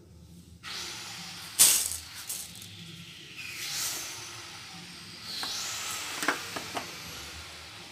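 Sugar and water going into a hot steel kadai. A sharp knock comes about one and a half seconds in, then the sugar grains rattle. In the second half a steady hiss rises as water wets the sugar on the hot pan.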